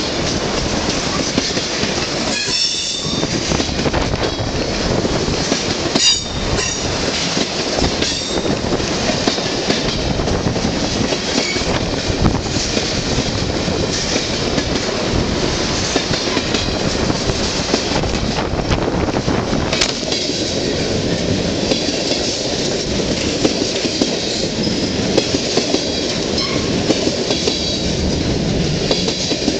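Freight train of tank cars rolling past close by, its steel wheels clattering over the rails. Brief high wheel squeals come a few seconds in.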